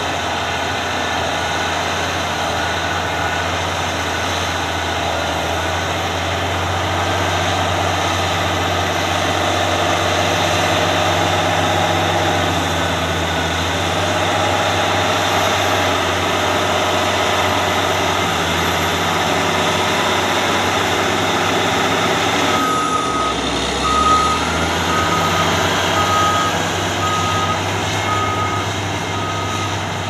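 Caterpillar D8R bulldozer's six-cylinder diesel engine running steadily under load as it pushes soft, wet material. About three-quarters of the way through, a reversing alarm starts beeping about once a second.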